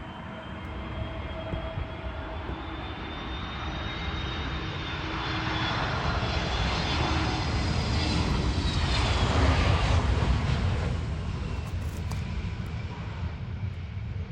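Jet airliner passing, its engine noise building steadily to a peak about ten seconds in and then easing off, with a high engine whine that falls slowly in pitch.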